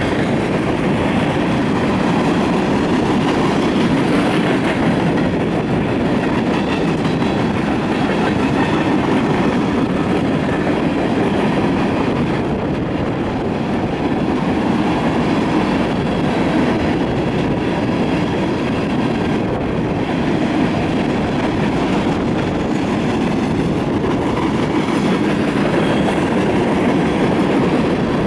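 Hopper cars of a BNSF freight train rolling past at steady speed: a continuous, even rumble of steel wheels on rail.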